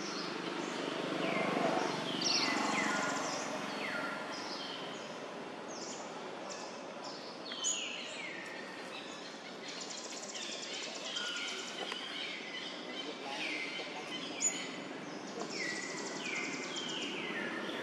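Several birds calling, with many short falling whistles overlapping and repeating, and a buzzy trill heard twice in the second half.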